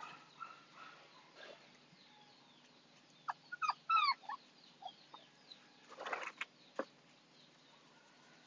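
Six-week-old Husky puppies giving a few short, high whimpers that fall in pitch, bunched together about three to four seconds in, then a brief rustle about six seconds in.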